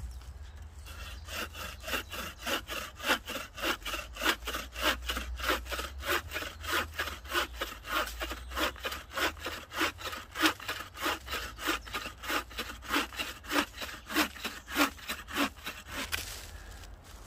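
Hand saw cutting through wood in quick, even back-and-forth strokes, about three a second, stopping near the end.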